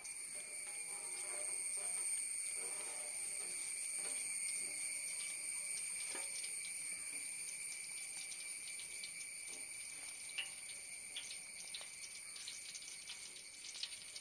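Coconut oil pouring in a thin stream from a plastic pouch into a large aluminium pot, a soft steady trickle, over a steady high-pitched drone.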